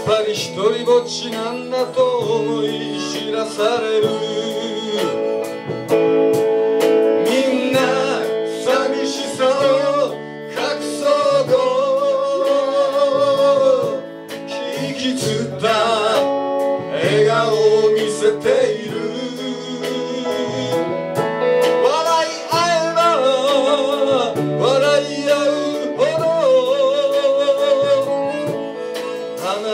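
Live folk-rock band playing a song: electric guitars, bass and drums, with a man singing and a harmonica played cupped to a microphone carrying wavering held notes.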